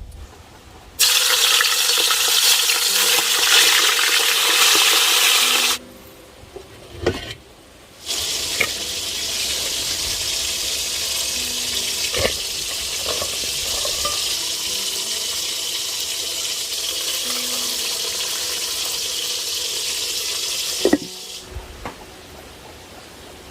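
Food sizzling in a hot pan in two long stretches, broken by a short pause, with a few sharp knocks of a utensil against the pan.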